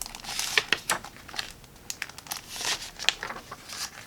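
A picture book being opened and its pages handled: irregular paper rustling and crinkling with small crackles.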